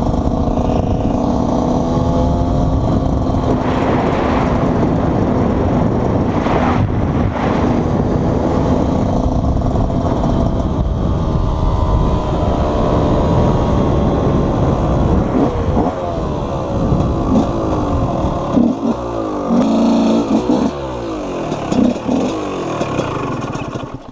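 KTM 125 EXC's two-stroke single-cylinder engine under way, its pitch rising and falling as the throttle opens and closes. In the second half it gives a run of short revs and drops, and the sound cuts off suddenly near the end.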